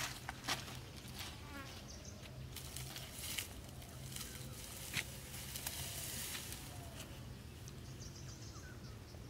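Faint outdoor ambience of insects and a few short bird chirps, with scattered crunches and rustles of bare feet on dry soil and leaves.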